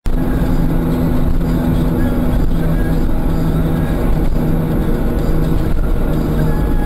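Car engine and road noise heard from inside the cabin while driving on a snowy road: a steady low drone with an even hum of the engine under it.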